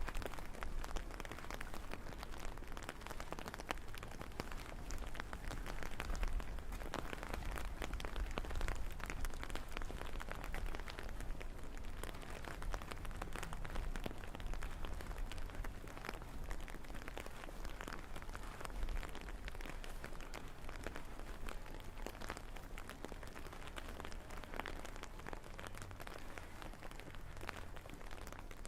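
Steady rain falling and pattering on hard surfaces, thick with the small ticks of individual drops, over a low rumble.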